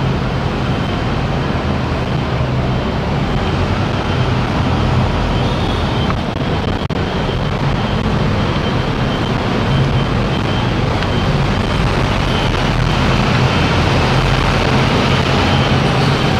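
Steady low rumble of bus engines and road traffic.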